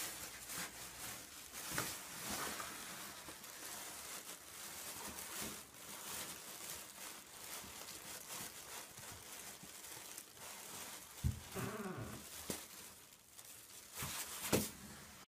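A thin plastic bag crinkling and rustling in irregular bursts as a small puppy bites and tugs at it. Near the end there are a couple of short pitched sounds.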